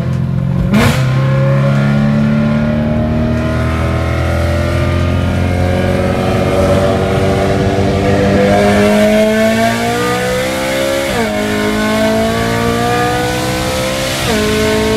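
BMW E92 M3's 4.0-litre V8 heard from inside the cabin, accelerating hard with its pitch rising steadily for about ten seconds. Near the end come two quick upshifts, each dropping the pitch before it climbs again.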